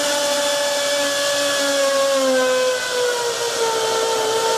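Hamilton Beach blender's brushed motor running flat out, overvolted to 250 volts from a Variac: a loud high whine over a steady hiss, its pitch sagging about three seconds in. The overvolted motor is straining, 'not happy'.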